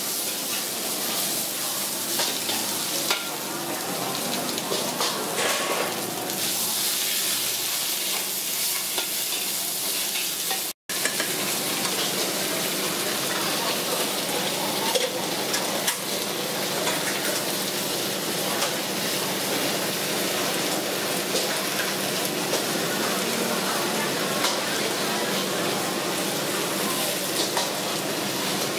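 Greens stir-frying in a hot wok: a steady sizzle with metal spatula scrapes and clicks against the pan. The sound cuts out for an instant about eleven seconds in, then the sizzle resumes.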